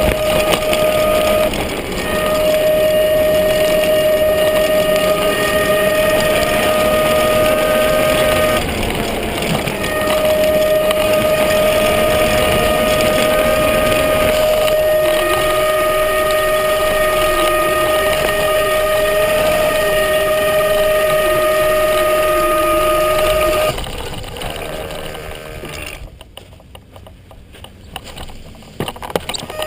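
Electric off-road skateboard's motor giving a steady high whine over the rough rumble of the wheels. The whine cuts out briefly twice, stops a few seconds before the end as the sound falls away, and starts again just at the end.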